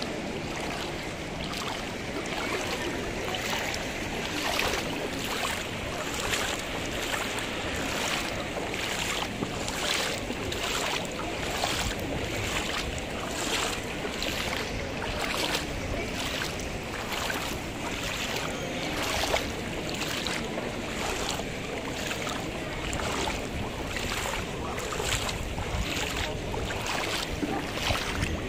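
Footsteps wading through shallow floodwater on a paved square, a splash and slosh with each step at an even walking pace, about one and a half steps a second.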